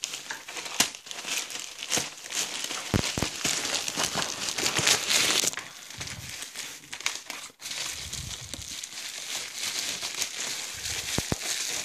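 Plastic mailer bag and packing wrap crinkling and crackling as a parcel is unpacked by hand, loudest for a stretch about four to five seconds in.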